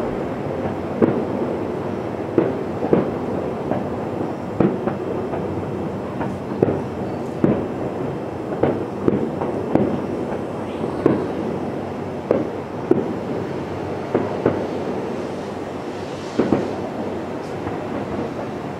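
Distant fireworks shells bursting: a string of booms, roughly one a second and irregularly spaced, over a steady rumble.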